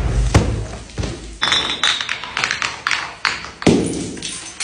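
Plastic soda bottles bursting and bouncing down granite stairs: a rapid, irregular series of knocks and thuds from the bottles hitting the stone steps, with the splash and hiss of sprayed soda between the hits.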